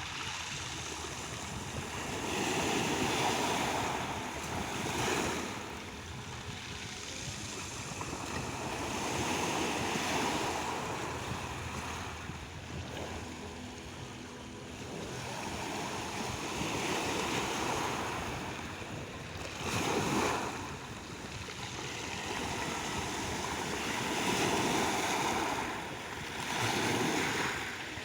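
Black Sea waves washing onto the shore, the surf swelling and falling away every few seconds.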